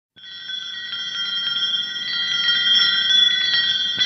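Shimmering bell-chime sound effect for a logo intro: a cluster of high ringing bell tones with rapid tinkling strikes all through, swelling a little louder towards the end.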